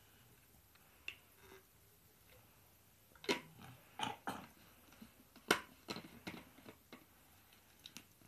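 Plastic flip-top water bottle being handled as its straw tube is refitted and the lid closed: a scattering of short plastic clicks and knocks, the loudest about five and a half seconds in.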